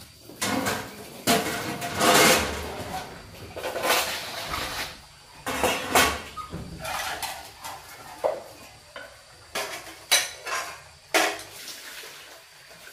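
Dishes and utensils knocking and clinking at irregular intervals.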